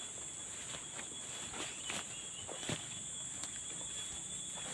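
Footsteps on the forest floor crunching leaves and twigs, with a few sharper clicks and snaps, over a steady high-pitched drone of insects.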